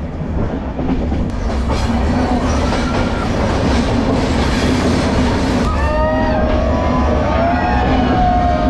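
Train running on the track with a steady low rumble. From about six seconds in, the wheels squeal with thin high tones that waver up and down in pitch.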